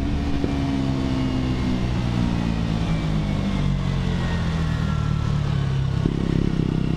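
2017 KTM 125 Duke's single-cylinder engine running on a closed throttle, its pitch falling steadily as the bike slows. About six seconds in the sound changes abruptly as the rider downshifts, and the exhaust pops on the downshift.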